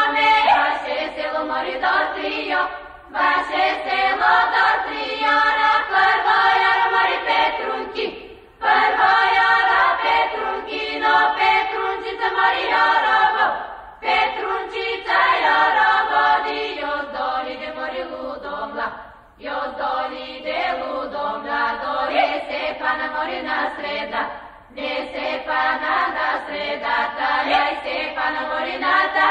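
A choir singing a Balkan folk song. The song is sung in phrases of about five seconds, each ending in a brief break.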